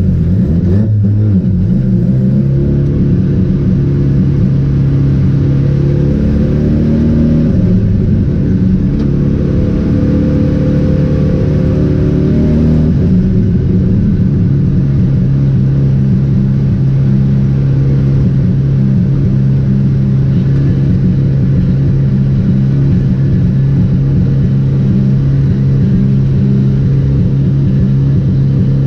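Mazda RX-7's rotary engine being driven hard, its pitch dipping and climbing through the first half, then holding one steady note from about halfway.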